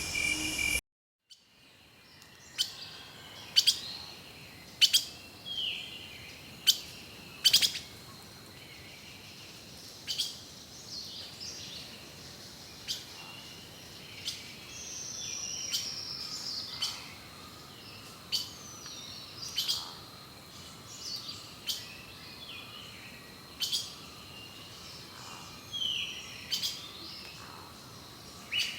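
Forest songbirds calling and singing: a mix of sharp, loud call notes and short gliding chirps from several birds, over a faint steady background hiss. Just after the start, a chirring of crickets cuts off abruptly, followed by a moment of silence before the birds begin.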